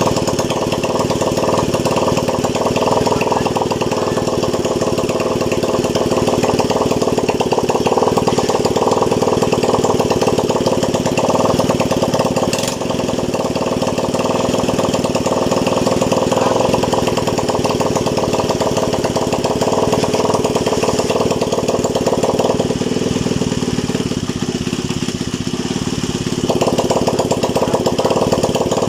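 Honda TMX 155 motorcycle's single-cylinder four-stroke engine running steadily, freshly overhauled.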